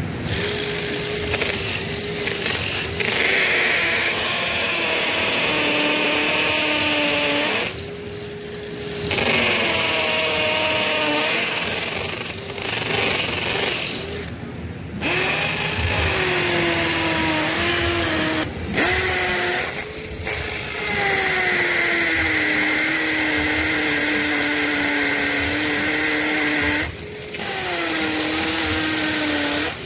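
Bauer cordless drill boring anchor holes into a concrete floor through a steel base plate. The motor whine sags in pitch as the bit loads up, and the drill stops and restarts several times.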